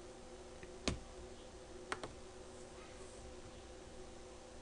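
Computer mouse clicking: one click about a second in, then a quick pair about two seconds in, over a faint steady hum.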